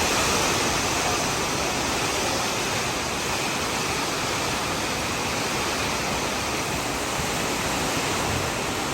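Steady, even rushing noise, with no distinct knocks, tones or changes.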